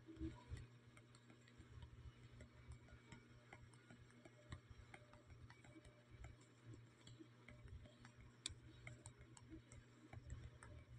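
Near silence: a faint steady low hum with scattered soft ticks and clicks, one a little sharper about eight and a half seconds in.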